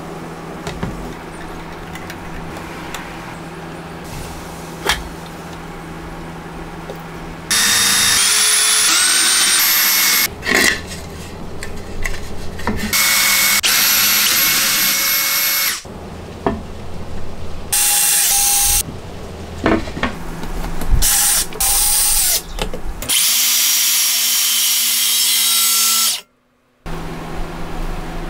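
Cordless drill running in several bursts of one to three seconds as it drills into plywood, with clicks and knocks of handling between bursts.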